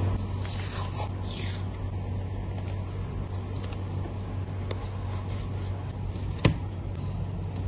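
Photocard packing materials being rubbed and slid by hand, with a few quick swishes in the first couple of seconds and one sharp click about six and a half seconds in, over a steady low hum.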